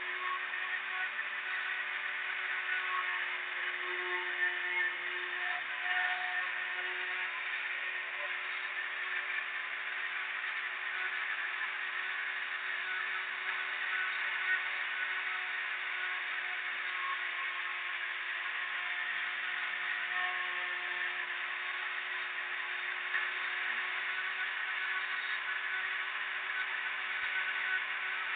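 Machine tool running steadily, a constant whir with a steady hum underneath.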